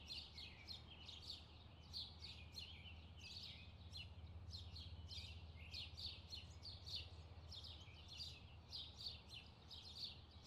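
Faint chirping of small birds: many short, falling chirps a few each second, over a low steady hum.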